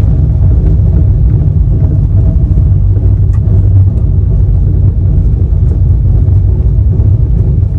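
Express passenger train running, heard on board: a loud, steady low rumble of wheels on the rails, with faint scattered clicks.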